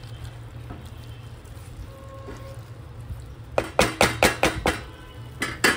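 Spatula scraping and knocking against a nonstick pot while stirring chopped onions and chicken liver: a quick run of about six strokes a little past halfway, then two more near the end, over a steady low hum.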